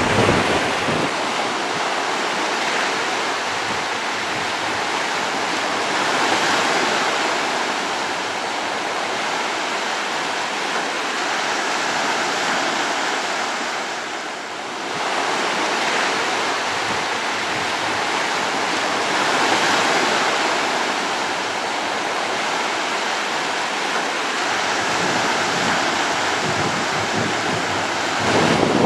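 Sea surf: waves breaking and washing up, the rush swelling and easing every six or seven seconds.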